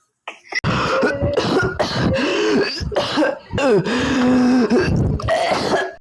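Long, exaggerated coughing and throat clearing, loud and rough, with the voice's pitch sliding up and down. It starts about half a second in and cuts off suddenly near the end.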